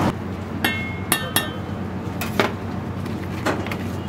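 A metal spoon clinking against a stainless-steel bowl about six times, the first few strikes ringing briefly, over a low steady hum.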